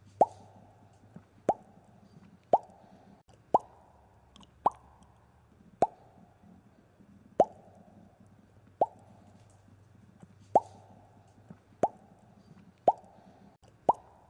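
Bubbles popping, about a dozen sharp pops at roughly one a second. Each is a quick upward blip followed by a short hiss.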